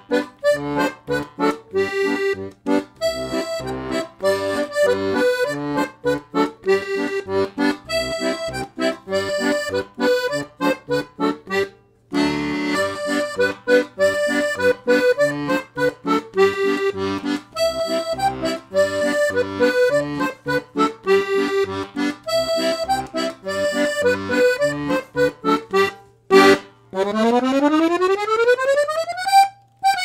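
A Parrot Parakeet 3 C-system button accordion, with 25 treble buttons on two sets of reeds and 12 bass buttons on three sets of reeds, plays a lively tune: a melody of short notes over steady pulsing bass notes, breaking off briefly about twelve seconds in. Near the end the playing stops and a smooth rising sweep of tones takes over.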